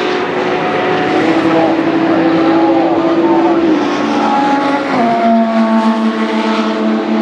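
WEC Hypercar prototype race cars' engines running at speed, several engine notes heard at once. Their pitch drops in steps about four and five seconds in.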